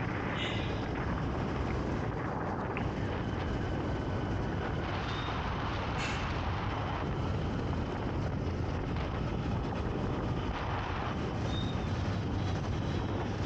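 Royal Enfield motorcycle running steadily while riding through traffic, with wind and road noise, and a few brief high tones from the traffic around it.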